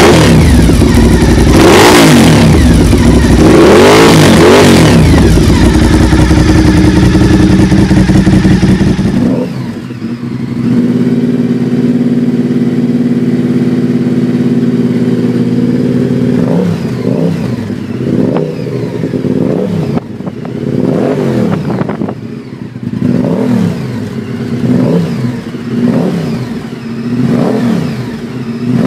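Honda VTR1000 SP-1 90-degree V-twin through a Dominator GP2 exhaust, running loud and revved sharply twice. About nine seconds in, a Honda VTR1000F V-twin with a full Two Brothers high-level exhaust takes over: it idles steadily, then from about halfway is blipped over and over, roughly once a second.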